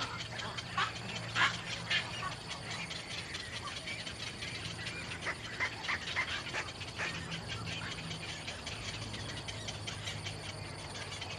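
Birds giving short, scattered chirps, a few in the first two seconds and another cluster around the middle, over a steady low hum.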